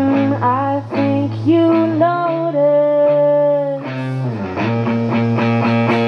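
Live band music: a woman singing lead over strummed acoustic and electric guitars, holding one long note about midway through.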